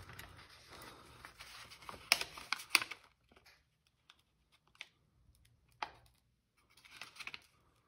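Sheet of paper rustling faintly as it is handled against a steel broadhead's edge, with a handful of short light clicks in the first six seconds.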